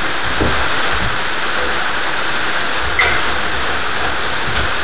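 Steady rain falling, a constant even hiss, with a single light click about three seconds in.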